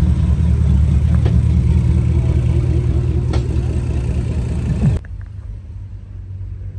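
Car engine running close by with a deep, steady rumble, rising briefly just before it cuts off abruptly about five seconds in. A quieter low rumble with a few light clicks follows.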